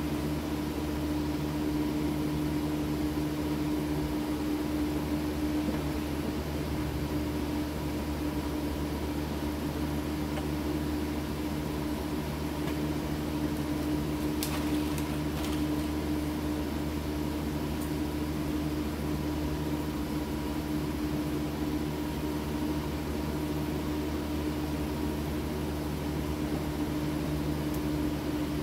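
A steady mechanical hum with a clear low tone, unchanging throughout, with a few faint clicks about halfway through.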